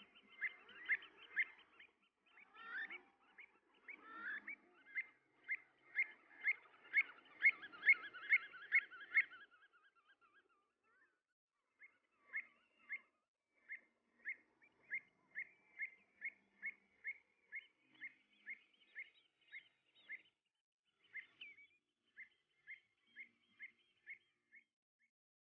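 Pied avocets calling: long runs of short, clear, repeated notes. The first ten seconds are busy and overlapping, and after a brief pause a steady series follows at about two calls a second.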